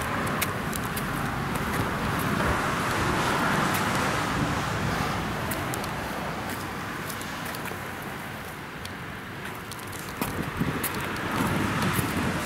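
Outdoor background noise: road traffic and wind on the microphone, swelling for a few seconds and then easing, with sharper clicks near the end.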